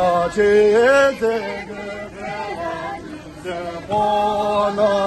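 A group of men singing a Tibetan folk dance song in unison without instruments: long held notes that slide between pitches, in several phrases with short breaks, ending near the end.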